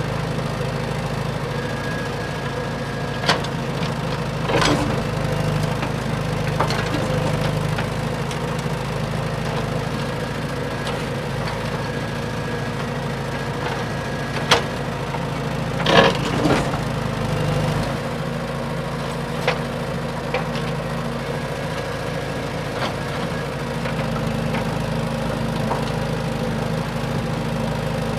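A large excavator's diesel engine running steadily, with a few sharp cracks and knocks over it, the loudest about halfway through.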